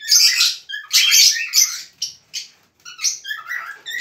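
Cockatiels calling: a quick run of shrill, harsh chirps and screeches, several a second, with a short lull just past the middle.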